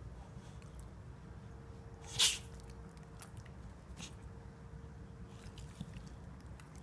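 English bulldog sneezing once, a short wet spray of air about two seconds in, with a few faint snuffling clicks afterwards.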